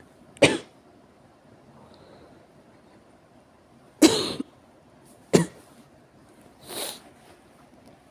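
Severe coughing: four short coughs, one near the start and three between about four and seven seconds in, the last one fainter.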